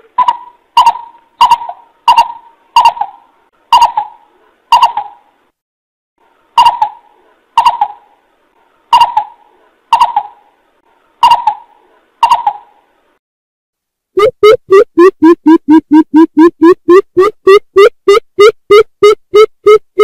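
Greater coucal lure call played back. Loud single calls come about two-thirds of a second apart, with a break between two runs. About fourteen seconds in, a fast series of deeper calls begins, four or five a second, dipping and then rising in pitch.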